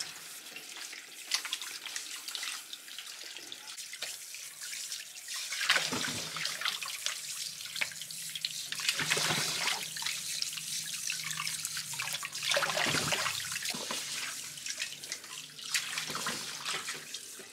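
Water running from a tap onto peeled cassava roots in a metal basin as they are rubbed clean by hand, with splashing and a few louder knocks as the roots are handled.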